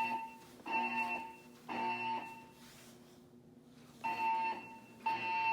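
Siemens MXL-V fire alarm speakers sounding the temporal-three evacuation tone: a set of three short beeps, a pause of about a second and a half, then the next set of three starts. This is the tone part of the looped alarm signal that alternates with the spoken evacuation message.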